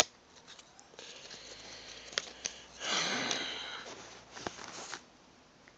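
Trading cards and cardboard card boxes being handled: a few small clicks and taps, with a soft rustle about three seconds in.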